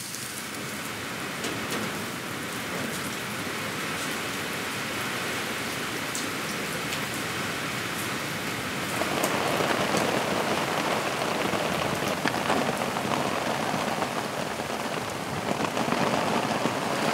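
Steady rain falling, growing heavier about nine seconds in.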